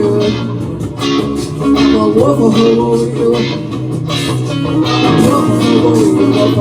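Music: guitar over a steady bass line and a regular beat.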